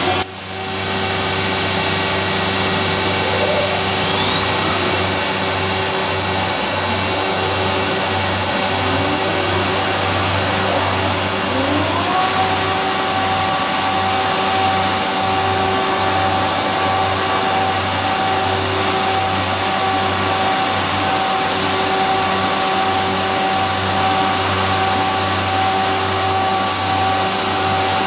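Weinig P 22 N four-sided planer running with a steady loud hum, its cutter spindles coming up to speed one after another. Each spindle gives a rising whine that levels off into a steady tone, about four and again about nine to twelve seconds in.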